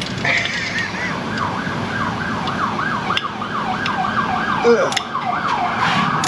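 Police car siren on a rapid yelp, its pitch sweeping up and down about three times a second from about a second in. Near the end it changes to a slower rising wail.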